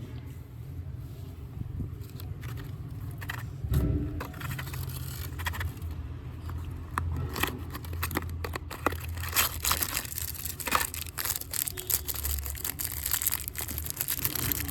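Candy packaging being handled and opened by hand: wrappers crinkling and tearing in quick irregular crackles, denser from about three seconds in, over a low steady hum.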